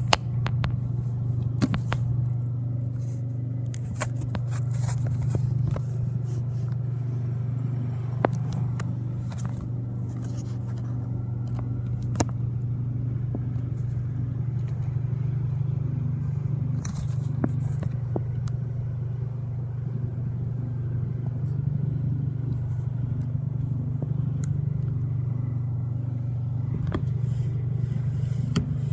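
Microwave oven running with a Peeps marshmallow inside: a steady low hum with a few faint clicks scattered through it.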